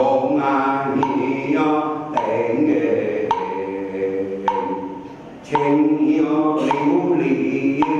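A group of voices chanting in unison in a ceremonial recitation, with a wood block knocked about once a second to keep the beat. The chant briefly falls away around five seconds in, then resumes.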